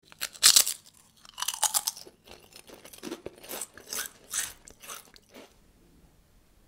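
Close-miked biting and chewing of New York cheesecake with caramel sauce: a string of separate mouth sounds, loudest in the first two seconds, stopping about five and a half seconds in.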